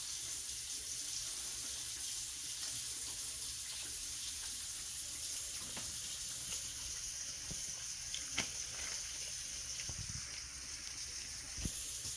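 Fish deep-frying in hot oil: a steady sizzle, with a few faint clicks late on.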